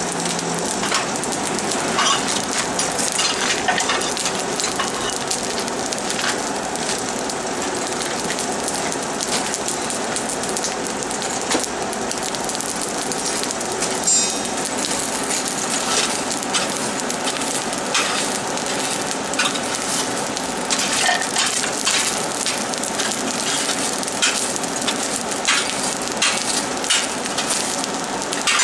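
Forge fire burning under a steady air blast, with a continuous rush and frequent crackles and pops.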